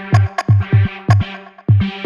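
Background electronic music with a steady beat: deep kick drum, sharp clicking hits and a held synth tone.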